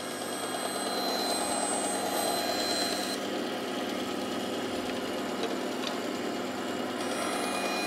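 Bandsaw running steadily, its motor and blade giving an even hum with a thin high whine.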